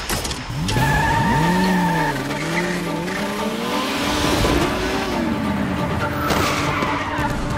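A car engine revving up and down in repeated rising and falling sweeps, with tyres skidding, over a dense rumble. A sharp hit comes right at the start.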